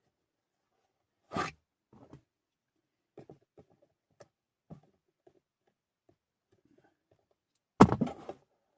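Hands working a plastic wiring connector and its red locking tab: scattered small clicks and rustles, a sharp snap about a second and a half in, and the loudest clatter near the end.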